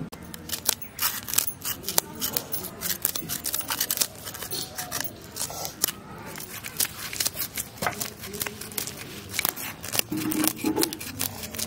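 A knife scraping the scales off a whole Indian carp (rohu or katla): a quick, irregular run of short scraping strokes, several a second.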